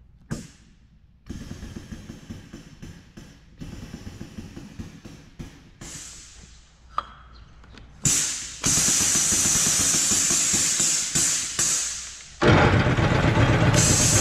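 Air-powered grease pump running while PTO shaft universal joints are greased: a loud steady air hiss starts about eight seconds in and grows louder with a low running rumble about four seconds later. Before it, light clicks and metal knocks come from the grease gun coupler and the steel shaft yokes being handled.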